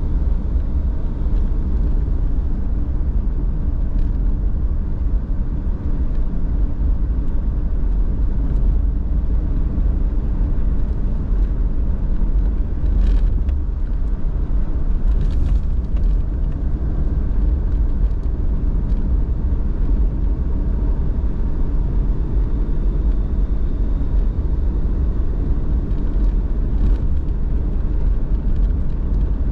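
Car driving along at a steady pace: a constant low rumble of road and engine noise. A few faint brief ticks come through about halfway and near the end.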